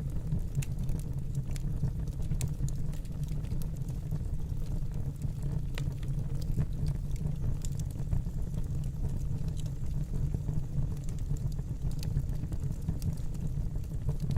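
Wood fire burning in a fireplace: a steady low rumble of flames, with scattered sharp crackles and pops.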